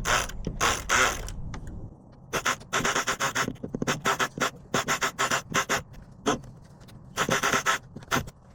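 Locksmith's metal tools scraping and raking in a door lock: quick, rasping strokes in runs, a few at first, then a rapid run of several strokes a second, a short pause, and another quick run near the end.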